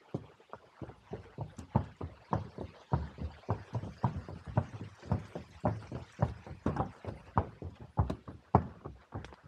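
Horse's hooves clopping at a walk, a steady run of knocks about three a second, louder from about a second in.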